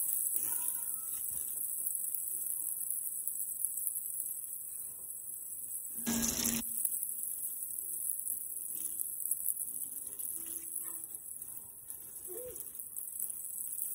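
Chicken pieces deep-frying in a pan of hot oil: a steady high sizzle, with a brief louder burst about six seconds in.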